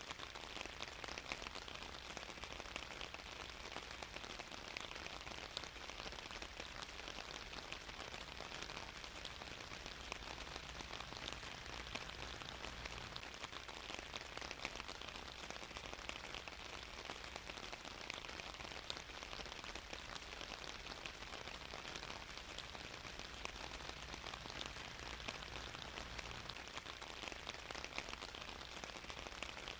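Steady rain falling, many drops pattering on a surface, with no change in intensity.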